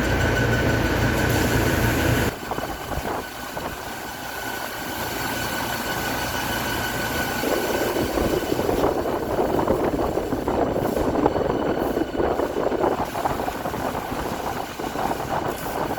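Portacool Jetstream 270 evaporative cooler's large fan running, with a low motor hum and a steady whine. About two seconds in, the hum and most of the whine drop away abruptly, leaving a rougher, fluctuating rushing noise.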